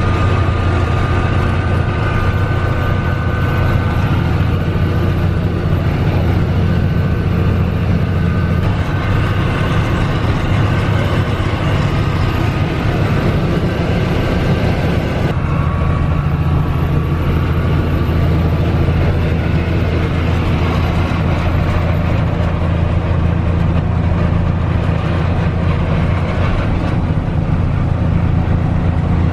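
Mack R-series truck's diesel engine running steadily under way, a loud low drone heard from inside the cab mixed with road noise. The sound changes abruptly about halfway through.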